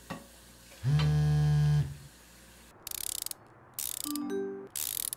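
A smartphone vibrating against a hard countertop: a loud, steady buzz lasting nearly a second, about a second in. Later come several short noisy bursts and a brief electronic tone.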